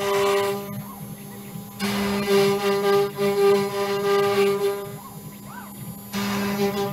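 CNC router spindle with an up-cut bit milling a wooden sheet: a steady, loud pitched whine. Twice, about a second in and again near the end, the cutting sound drops away for about a second while the bit lifts out and moves to the next cut, leaving a quieter whir with faint rising and falling tones, before the cut resumes.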